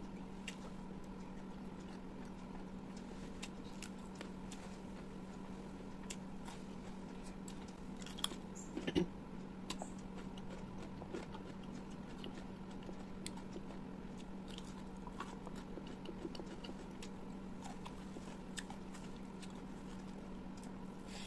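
Close-miked eating sounds: a person chewing and biting, with scattered wet mouth clicks and a short cluster of louder ones about eight to nine seconds in, over a steady low hum.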